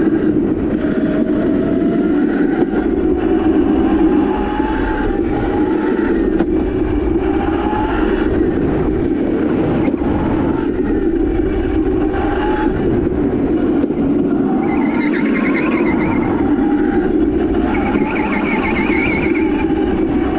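Electric Crazy Cart drift carts on the move: a motor whine that rises and falls in pitch with speed, with higher whines joining about fifteen and eighteen seconds in, over a steady rushing noise.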